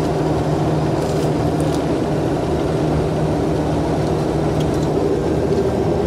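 Steady road and engine noise inside the cabin of a moving car cruising on a highway.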